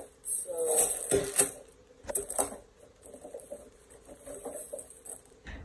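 Cardboard LEGO box being shaken and emptied, with plastic bags of bricks rattling and knocking onto a wooden table and the packaging rustling. The clattering comes in the first two and a half seconds, then the handling noise turns fainter.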